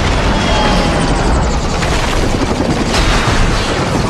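Action-film battle sound: continuous heavy automatic gunfire with bullets striking and debris flying, over a deep booming rumble.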